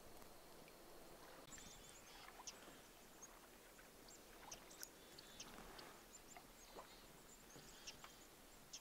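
Near silence: faint outdoor ambience, with scattered faint, short high-pitched chirps and ticks.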